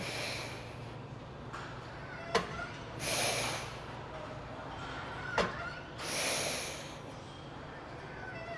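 Forceful exhalations of a man straining through leg-press reps, three short hissing breaths about three seconds apart. Each of the later breaths comes just after a sharp click from the leg press machine as a rep turns over.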